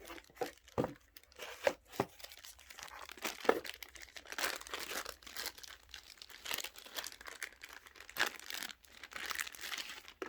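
Card packaging being unwrapped: crinkling and tearing with sharp clicks, as a set of cards is opened.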